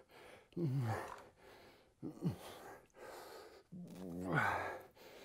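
A man breathing hard under exertion during heavy single-arm dumbbell rows: sharp breaths and three short groaning exhales that fall in pitch.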